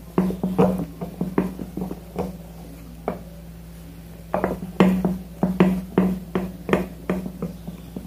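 A mixing utensil knocking and scraping against a glass bowl while egg batter is stirred by hand, in irregular strokes of about two or three a second, with a pause of about two seconds in the middle.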